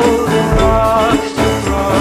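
Background music: a song with pitched instruments over a steady bass beat.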